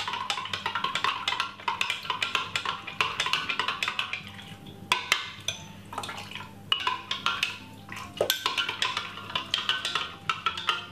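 Metal spoon stirring liquid in a glass measuring jug, clinking rapidly against the glass, with a short lull about halfway through before the stirring resumes. Background music plays underneath.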